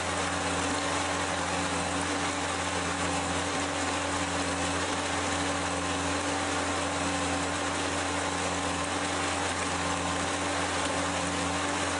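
Blastcrete Mason Mate mixer-pump running steadily: a constant low machine hum and hiss, with a second tone that comes and goes about every second and a half.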